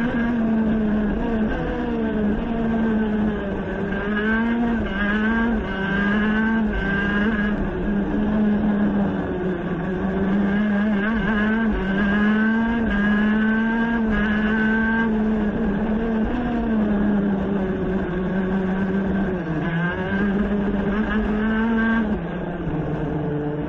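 Onboard sound of a high-revving racing engine at full throttle, its high steady note dipping briefly and climbing again every few seconds as the throttle is lifted and the gears change. The note drops lower near the end as it slows.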